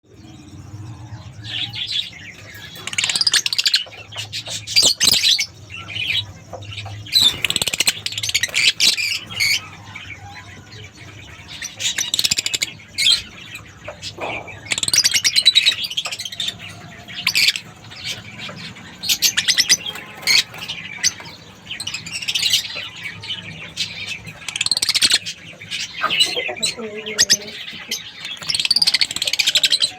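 Young lovebirds chirping and squawking in bursts, with a steady low hum underneath.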